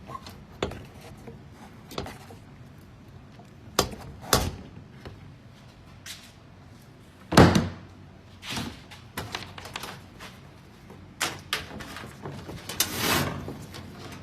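Metal washing-machine parts being knocked, banged and shifted during a tear-down: irregular clanks and thuds, the loudest about seven seconds in, and a short scrape near the end.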